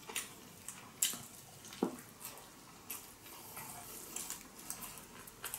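Close-miked mouth sounds of chewing a big bite of sushi roll: irregular wet smacks and clicks.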